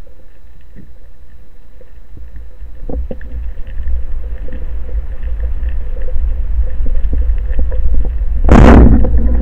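Low underwater rumble of moving water around a speargun-mounted camera, growing louder partway through, with faint clicks. Near the end comes one loud, short burst as the rubber-band speargun fires.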